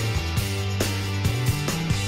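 Background music with drums and a bass line keeping a steady beat.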